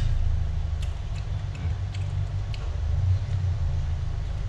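Steady low rumble throughout, with light clicks and clinks of a spoon and fork on a plate as food is eaten, one sharper clink right at the start.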